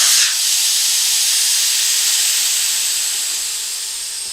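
Air hissing out of an ATV tire through its open valve stem after the valve core has been removed. The hiss is loud and high and slowly fades as the tire deflates.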